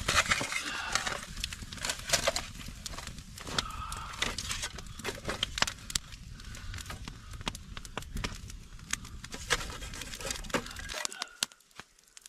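Campfire crackling, with many sharp pops and snaps over a low rumble that stops suddenly near the end.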